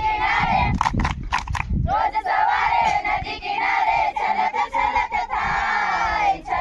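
A group of women singing an action song together in unison, with a quick run of hand claps about a second in. For the first two seconds a low rumble of wind on the microphone lies under the voices.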